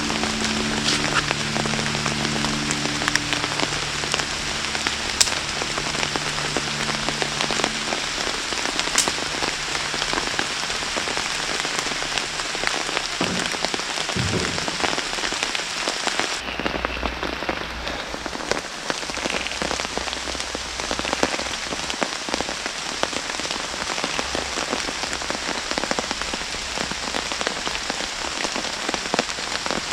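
Steady rain falling in a forest, a dense hiss full of individual raindrops ticking. A little past halfway the sound turns duller, losing its highest hiss.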